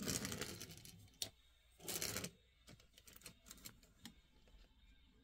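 Handling noises of a diecast toy car and its plastic packaging: two brief rustling swishes, a sharp click about a second in, and several light ticks afterwards.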